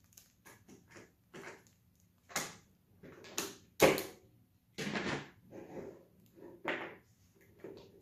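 Handling noise from a plastic cordless drill housing and small parts being picked up, set down and fitted together on a tabletop: a run of irregular clicks, knocks and a short scrape, the loudest a sharp knock about four seconds in.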